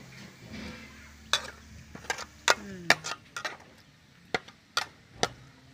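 Metal spatula clinking and scraping against a steel wok while stirring garlic frying in oil: a dozen or so sharp, irregular clinks, busiest in the middle of the stretch.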